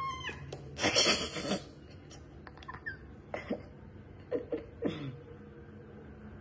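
A cat's short high mew, then about a second in a loud breathy rush of noise, followed by a few brief, quieter vocal sounds.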